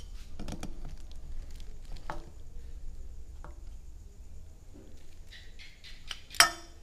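Small handling clicks and rustles, then near the end one sharp, loud clink of a metal utensil striking a glass bowl, ringing briefly.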